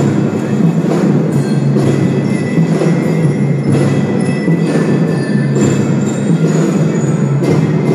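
Kindergarten drum band playing loudly and steadily, drums with ringing pitched percussion.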